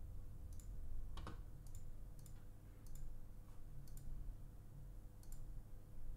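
Computer mouse clicking: about seven faint, separate clicks spread through, the one about a second in the loudest, over a faint steady hum.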